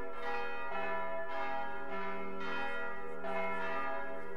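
Church bells of St Albans Cathedral ringing, one strike after another about every half second to second, the notes ringing on into each other.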